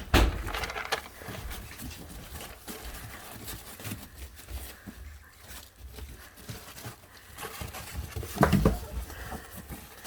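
American bully puppies at play: paws patter and scrabble on the pen floor, with scuffling and small animal noises as they tussle, and louder knocks at the very start and about eight and a half seconds in.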